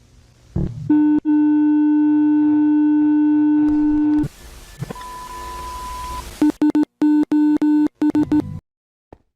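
Electronic emergency alert tones: a steady buzzy tone held for about three seconds, then a hiss with a short higher tone, then a quick run of short on-off beeps at the same pitch as the first tone.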